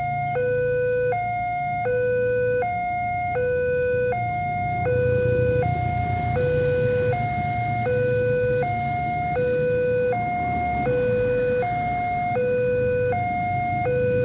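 Railway level-crossing warning siren sounding its two-tone alarm, alternating steadily between a low and a higher note about every three-quarters of a second, with a low rumble underneath.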